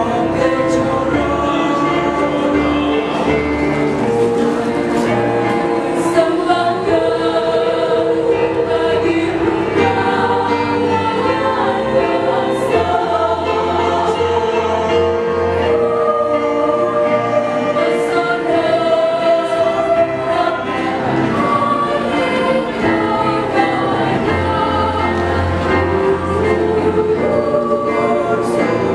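High-school choir singing in several voice parts, holding and moving through sustained chords.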